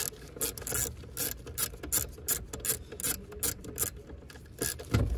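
Hand socket ratchet clicking in uneven bursts as a steering-column mounting nut is undone, then a single dull clunk near the end as the column drops slightly.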